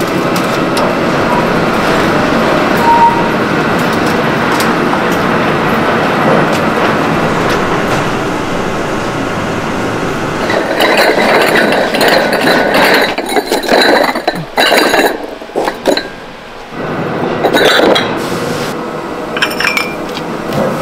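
A steady rumble for about the first ten seconds, as the loaded kiln car rolls out of the electric kiln on its rails. Then fired, glazed earthenware pots and lids (ttukbaegi) clink and ring against each other, many times and irregularly, as they are handled and sorted into a plastic crate.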